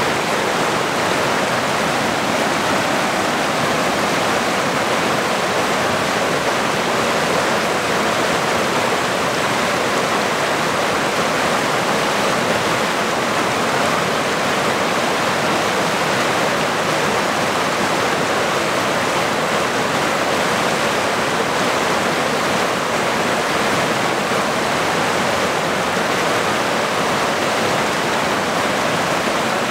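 A shallow river running over rocky rapids: a steady, unbroken rush of water.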